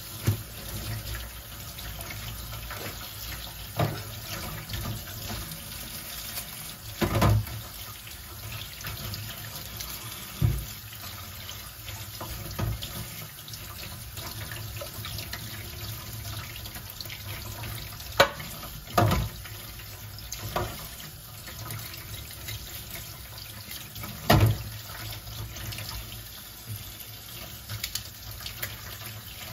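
Kitchen tap running steadily into a stainless steel sink as vegetables are rinsed under the stream. Several short knocks and bumps against the sink stand out, the loudest about a third of the way in and again in the last third.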